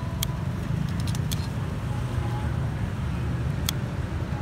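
Kitchen scissors snipping through grilled meat, with metal tongs clicking: a few sharp clicks, bunched around a second in and again near the end, over a steady low street rumble.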